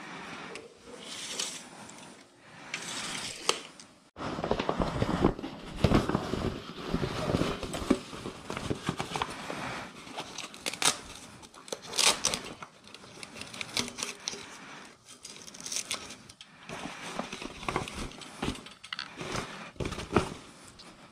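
Rustling and crinkling of a fabric cart liner bag being handled and fitted into an aluminium frame, with scattered sharp clicks and knocks. The rustling is lighter for the first few seconds, then busier from about four seconds in.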